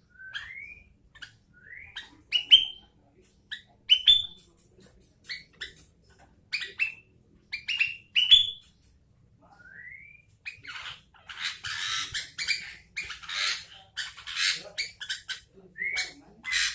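Sooty-headed bulbul (kutilang) calling: a string of short rising whistled notes, then from about eleven seconds in a run of harsh, rasping chatter.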